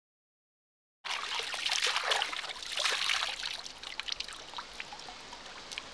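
Water splashing and dribbling as a man scoops stream water in his cupped hands and drinks, over the steady trickle of a shallow stream. It starts abruptly about a second in, busiest over the next two seconds, then settles to the quieter running of the stream.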